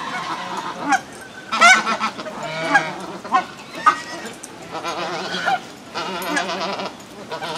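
A mixed flock of geese (swan geese, cackling geese and lesser white-fronted geese) honking repeatedly while feeding. Short, sharp honks come one after another in the first half, then longer quavering calls follow.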